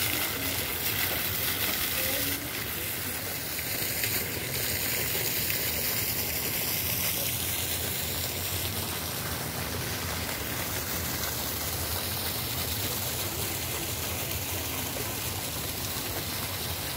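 A garden fountain's single vertical water jet splashing down into its basin: a steady rushing hiss that drops a little in level after about two seconds.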